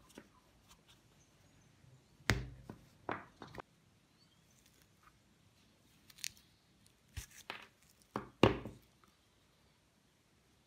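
Wire cutters snipping through a power adapter's cable and working its insulation off: a series of sharp snips and clicks, the loudest about two seconds in and about eight seconds in.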